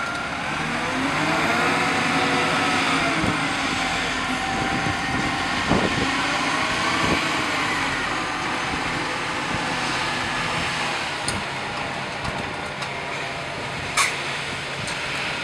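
Concrete mixer truck's diesel engine running as the truck drives slowly past, its pitch rising and falling. A single sharp knock comes near the end.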